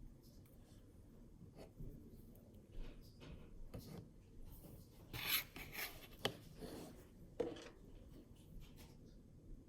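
Hands working a blue icee slime, its crisp top layer crackling and rubbing in scattered short bursts, the loudest a little past halfway.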